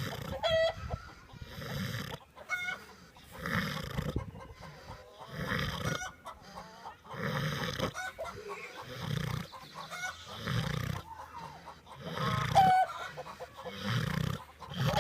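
Loud snoring, a rasping breath about every two seconds, with chickens clucking in short calls a few times.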